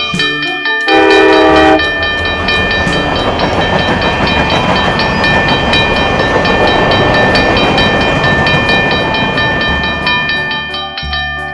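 Cartoon train sound effect: a short, loud train toot about a second in, then the steady clattering noise of the train running, over a children's music track that continues underneath.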